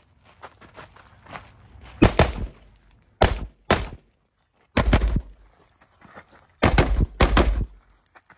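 Close-up gunfire from a competition shooter's firearm: after about two seconds of quieter movement and rustle, several sharp shots come singly and in quick pairs, spread unevenly over the next six seconds.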